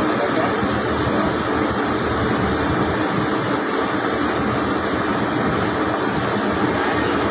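Steady engine drone of a small boat under way, mixed with a constant rush of wind and water noise.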